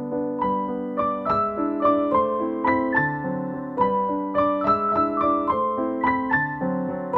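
Background piano music: a gentle melody of single notes, about two to three a second, over held chords.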